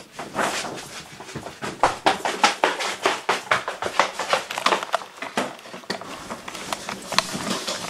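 Viola played as free improvisation, scraped and bowed in short, scratchy strokes at an uneven rhythm.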